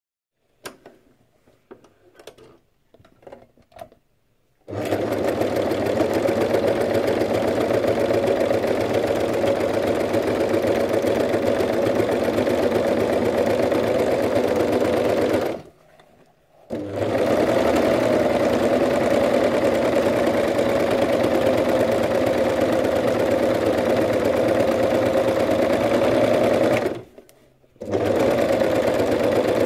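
Serger (overlocker) running at a steady fast speed, stitching and trimming a fabric edge. It starts about five seconds in after a few light handling knocks, stops briefly about halfway through, and stops again briefly near the end before starting up again.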